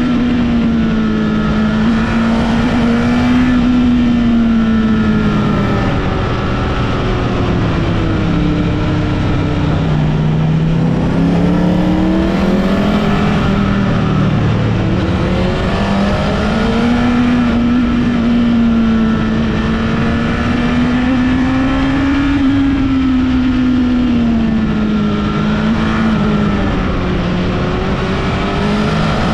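Honda CBR1000RR (SC77) inline-four engine ridden hard on a winding road, its pitch rising and falling with the throttle and dropping lowest about ten seconds in, over steady wind rush.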